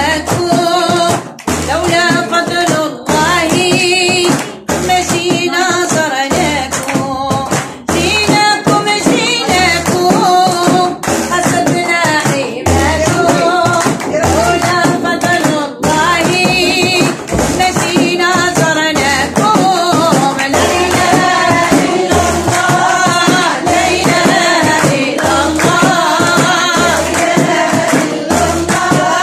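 Women singing a devotional chant in praise of the Prophet, accompanied by hand-held frame drums beaten in a steady rhythm.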